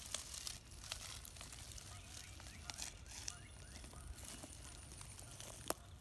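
Pileated woodpecker working at dead wood: irregular pecks and crackling as bark and wood are picked apart, with one sharp knock near the end.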